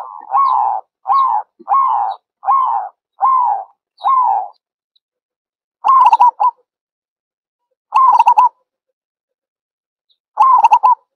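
Zebra dove cooing: a run of short coos, about three every two seconds, that stops about four and a half seconds in, followed by three quick stuttering rolls of coos spaced about two seconds apart.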